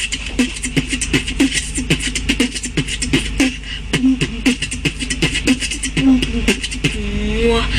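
Intro music built on a fast beatbox-style beat: rapid sharp percussive hits, about five or six a second, with short vocal sounds over a steady low bass, and a rising tone near the end.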